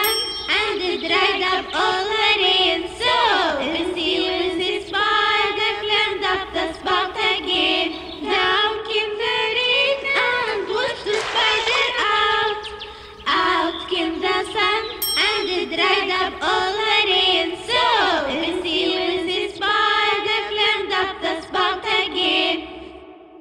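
Children's nursery-rhyme song: a sung melody over backing music, fading out near the end.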